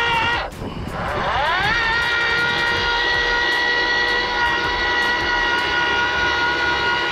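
Ryobi 40V HP brushless cordless earth auger's electric motor whining on its low speed setting as its 8-inch bit bores into the post hole. The whine dips about half a second in, climbs back up in pitch and then holds steady.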